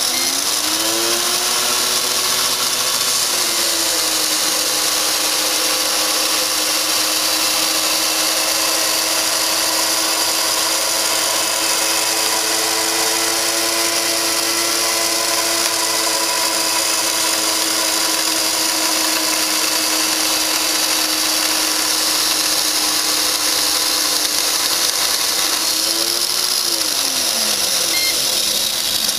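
DX-CD2 disc destruction device running a cycle on a DVD half to erase its information layer. Its motor whine rises as it spins up, holds steady under a loud hiss for most of the cycle, then falls in pitch as it winds down and stops near the end.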